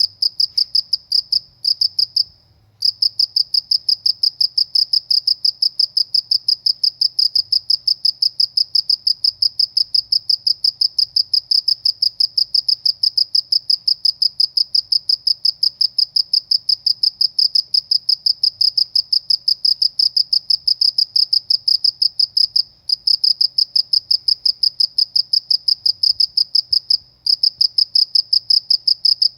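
A cricket singing loudly and close, a fast, even train of high-pitched chirp pulses, broken by a few short pauses near the start and twice later on.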